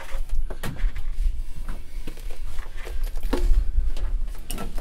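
Handling noise of a flexible sheet of HushMat sound-deadening mat being worked and pressed into place against the car's firewall sheet metal: scattered crackles, rustles and light taps over a low rumble.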